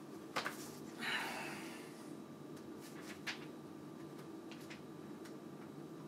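Handling of SATA data cables and their connectors: a few light clicks and taps, with a brief rustle about a second in, over a steady low hum.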